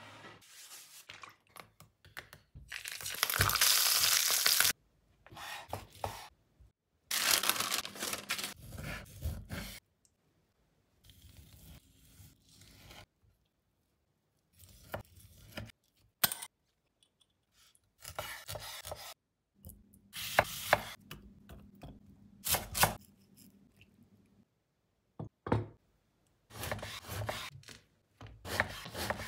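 Close-up kitchen food-prep handling sounds in short separate takes: loud tearing and rustling stretches, sharp knocks and clicks of a wooden cutting board, knife and food on the countertop, and softer sounds of meat and bread slices being laid down.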